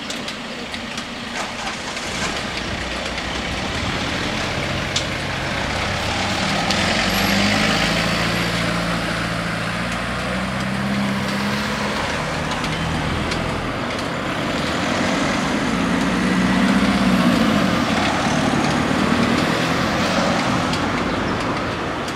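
Cars driving off and passing close by one after another, engines running. The sound swells about a third of the way in and again near the end as vehicles go past.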